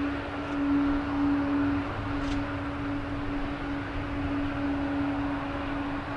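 Jet engines of a Boeing 777 airliner running as it rolls along the runway. The sound is a steady rush with a strong, unchanging humming tone running through it.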